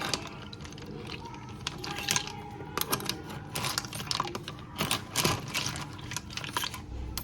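Rapid, irregular clicking and clattering of small hard objects knocking together, over a low steady rumble.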